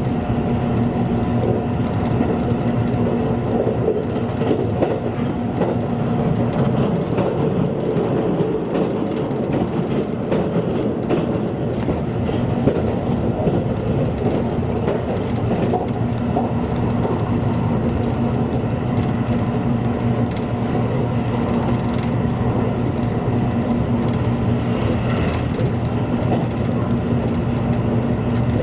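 A JR Kyushu train running at speed, heard from inside the carriage: a steady rumble of wheels on track with a constant low hum.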